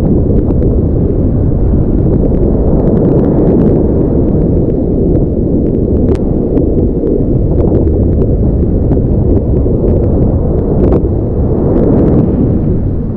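Wind buffeting an action camera's microphone, a loud, steady low rumble, with a few faint clicks.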